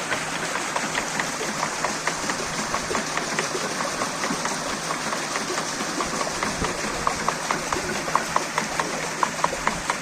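Water mill clattering in an even rhythm over rushing water, about three clacks a second, the clacks growing sharper near the end.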